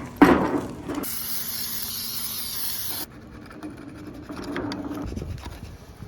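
Aerosol can of carburetor cleaner sprayed onto a dirty carburetor in one steady hiss of about two seconds that cuts off sharply, followed by quieter scrubbing and rubbing. A sharp click comes just before the spray.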